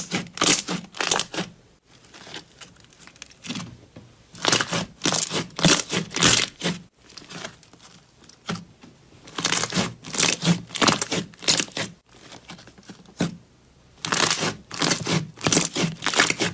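Slime being squeezed and pressed by hand: groups of rapid crackling, sticky pops, each group lasting a couple of seconds and coming about every four to five seconds.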